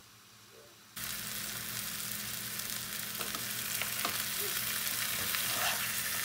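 Boneless pork shoulder roast sizzling as it browns in a hot electric skillet. The sizzle starts suddenly about a second in and runs steadily, with a few light clicks of tongs and a spatula against the pan as the meat is turned.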